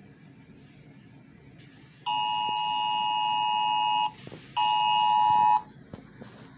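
Emergency Alert System-style attention signal: a steady, harsh two-tone alarm beep. It sounds for about two seconds, stops briefly, then sounds again for about a second.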